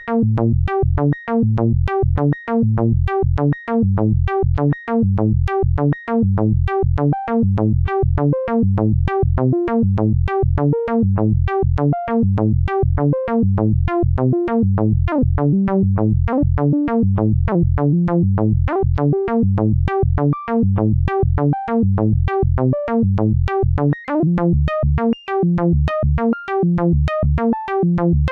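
Mutable Instruments Plaits synth voice playing a looping eight-step note sequence: a steady run of short pitched notes, several a second. The melody shifts as the sequence, passed through Ana's MIN output and quantized, has its higher notes pulled down by the IN2 knob while the lower notes stay put.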